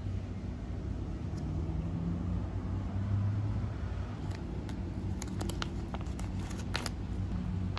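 Foil-lined retort pouch of ready-made curry being handled and torn open at its notch: a quick run of sharp crinkles and rips from about halfway through to near the end, over a steady low hum.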